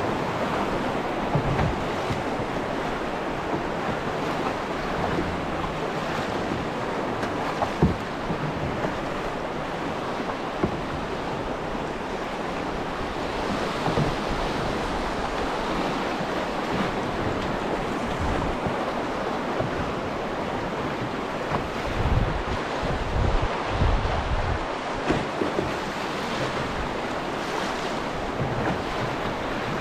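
River in high water rushing steadily, with wind buffeting the microphone in irregular low thumps, most about two thirds of the way through.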